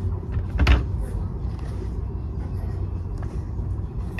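Steady low rumble of a large store's background noise picked up on a handheld phone, with one brief knock-like rustle under a second in.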